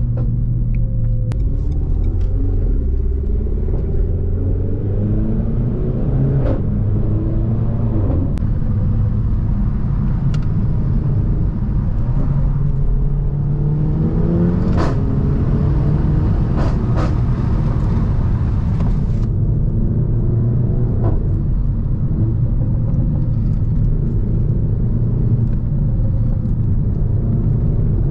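Renault Mégane RS 280's turbocharged four-cylinder with a catless exhaust, driven on the road: a steady low rumble whose pitch rises and drops back several times as it pulls. Several sharp cracks come through it, the loudest about halfway through.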